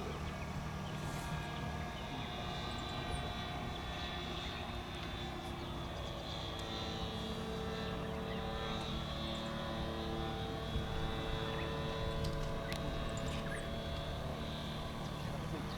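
Radio-controlled F3A pattern aerobatic plane in flight, its motor and propeller making a steady drone whose pitch shifts as it manoeuvres.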